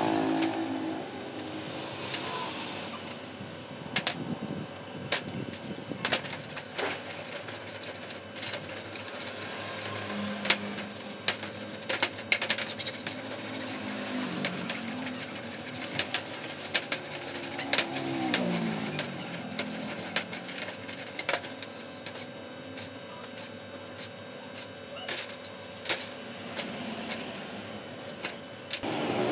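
Wire brush scrubbing rusty iron scale parts under liquid in a metal tin, with sloshing and many sharp clicks and clinks of metal against metal.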